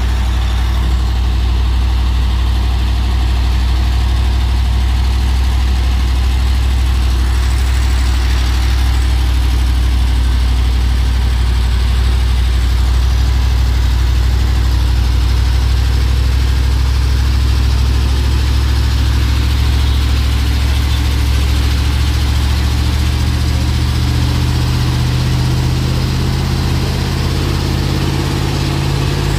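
Heavy truck engine running steadily at low revs, with a deep, even drone; in the last few seconds its pitch rises as the engine picks up.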